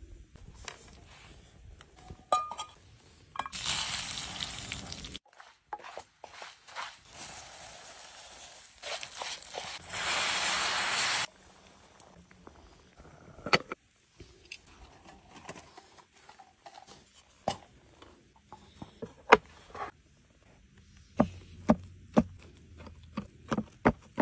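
Cooking over a wood-fired camp stove: a hot pan sizzling in two stretches, the second loud and about four seconds long, then scattered sharp clicks, knocks and utensil clinks, with a knife cutting through the dish near the end.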